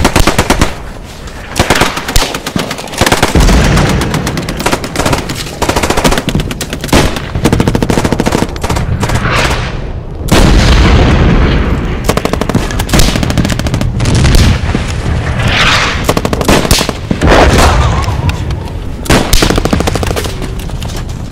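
Battle gunfire: rapid bursts of automatic submachine-gun and machine-gun fire mixed with single shots, near-continuous, with several heavy low booms about 3, 10 and 17 seconds in.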